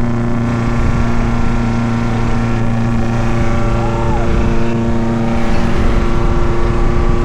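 Suzuki Jimny's engine running at steady revs while driving off-road.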